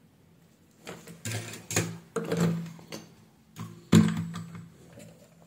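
Workbench handling noises: a run of clicks, knocks and rustles as the soldering iron is put down and the circuit board and its wires are handled, with the loudest, sharpest knock about four seconds in. A low steady hum runs underneath.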